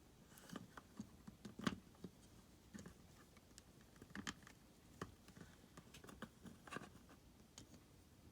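Faint, scattered plastic clicks and taps of small mini dolls being handled and pressed by their foot pegs onto a plastic toy playset, the loudest click about a second and a half in.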